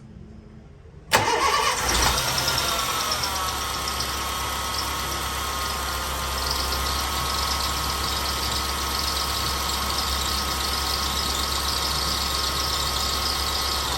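A 2005 Honda Fit's engine starting about a second in and idling, with a steady high-pitched squeal from the alternator (accessory) belt over the engine sound. The owner takes the squeal for belt friction on the pulley bearing from a slack belt, which tensioning may cure.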